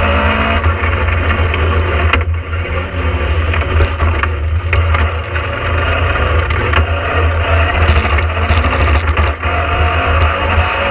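Rally car's all-steel Vauxhall 2.0 four-cylinder engine, heard from inside the cabin, working hard through a tight turn. It lifts off briefly about two seconds in, drops to first gear for the turn, then pulls away and shifts up to second near the end.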